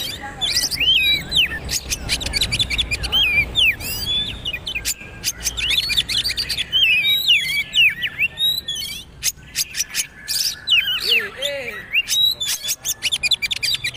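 Oriental magpie-robin (kacer) singing a rapid, unbroken run of quick whistles, chirps and sharp clicks. This is the fast, rattling 'trotol' style of song.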